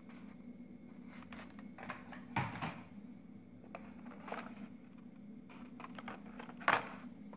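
Plastic-and-cardboard blister cards of die-cast toy cars being handled, shuffled and set down: light scattered clicks and taps, with two louder clacks about two and a half seconds in and near the end.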